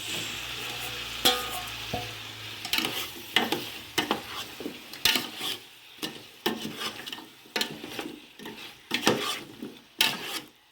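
Chicken and chopped tomatoes frying in hot oil in a pot, sizzling while a spoon stirs them, with many short scrapes and knocks of the spoon against the pot.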